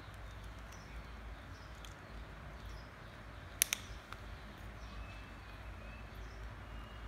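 Baby monkey gnawing on a small hard plastic case: two sharp clicks close together about three and a half seconds in, with a few fainter ticks, over a low steady hum.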